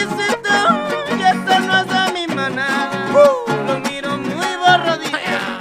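Instrumental huapango huasteco: a violin plays a lively melody with slides over the rhythmic strumming of a jarana huasteca. The music fades out at the very end.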